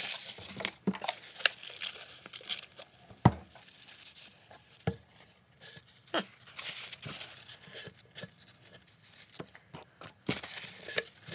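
Paper towel crumpled and rubbed along a ukulele's glued seam, wiping off wet wood-glue squeeze-out, with a few sharp knocks and taps as the instrument is handled on the bench.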